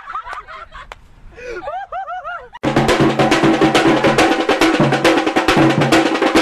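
A few quieter short chirping calls, then about two and a half seconds in loud music with fast, dense drumming and a steady held note starts.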